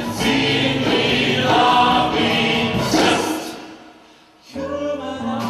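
Small vocal ensemble singing sustained chords. The voices fade away about four seconds in, then come back in on a new held chord.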